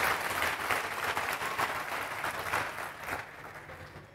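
Congregation applauding, the clapping dying away about three seconds in.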